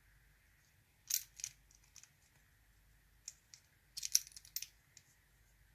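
Small metallic clicks and clinks of a padlock's parts being handled while it is taken apart, in two short clusters about a second in and about four seconds in, with a few single ticks between.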